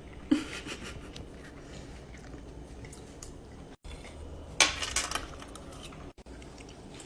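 Cutlery clinking and scraping on a plate as food is shovelled up: a sharp clink just after the start and a cluster of clinks about halfway through.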